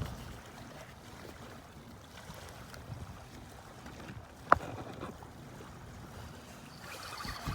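Steady, low outdoor noise of wind and water, with one sharp knock about four and a half seconds in.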